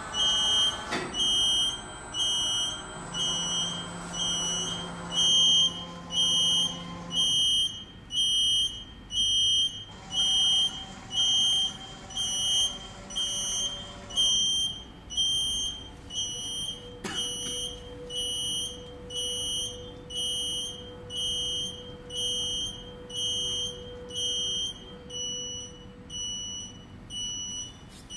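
High-pitched electronic warning beeper sounding in short beeps about once a second while the hydraulic press ram slowly descends. Under it runs a faint, steady hum from the press's hydraulic unit.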